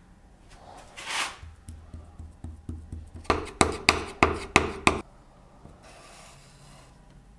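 Metal putty knife spreading Bondo body filler over a wooden veneer top. A brushing swipe comes about a second in, then a run of sharp clicks, about four a second, that grow louder and stop about five seconds in, then a faint scrape.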